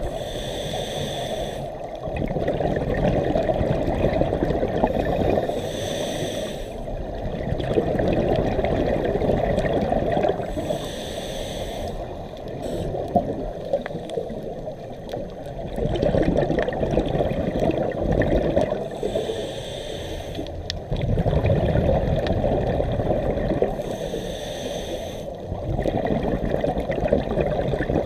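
Scuba diver breathing through a regulator underwater, muffled through a camera housing: a short hissing inhale about every five seconds, five in all, each followed by a longer low rumble of exhaled bubbles.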